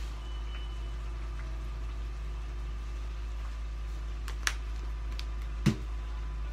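Smoke detector giving a single short high-pitched beep about a quarter second in, over a steady low kitchen background. Near the end come a sharp click and then a louder knock.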